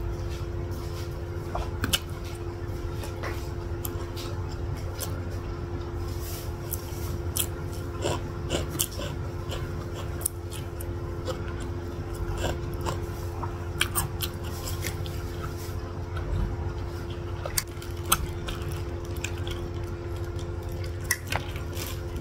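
Close-miked chewing and biting of satay meat: irregular wet mouth clicks and smacks, with the occasional tap of a bamboo skewer. A steady low hum runs underneath.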